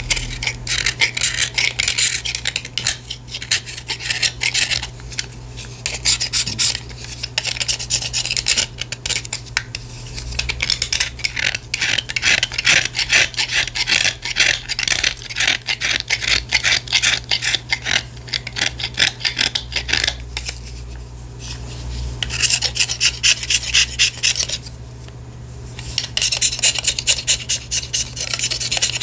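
A small hand grater rasping a dry block of clay in quick, continuous strokes, with a few brief pauses; a steady low hum runs underneath.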